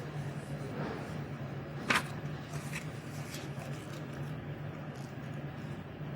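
Hospital waiting-room ambience: a steady low hum with a few faint small noises, and one short, sharp sound about two seconds in.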